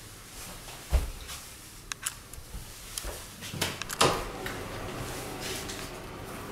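Cupboard door pushed shut with a sharp knock about a second in, followed by light clicks and knocks of handling, and another loud knock about four seconds in as a room door is opened; a faint steady hiss follows.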